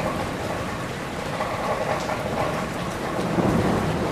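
Steady rain falling on tree leaves, a dense patter with scattered single drops, and a low rumble swelling about three seconds in.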